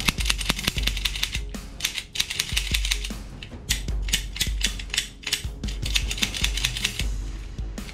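White plastic toy revolver's mechanism clicking rapidly in three bursts, a fast ratcheting rattle as it is worked by hand, over background music.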